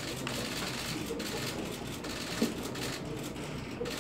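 Room noise in a press room: a steady low hiss with faint, indistinct voices in the background and one brief soft blip about two and a half seconds in.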